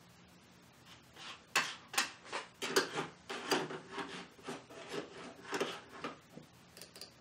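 A run of short rubbing, scraping strokes, roughly two a second and uneven in strength, starting about a second in and dying away just before the end.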